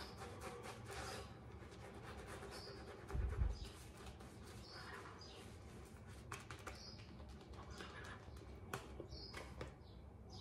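Shaving brush working lather over the face and stubble, a soft wet brushing and squishing. There is a dull low thump about three seconds in and faint bird chirps now and then.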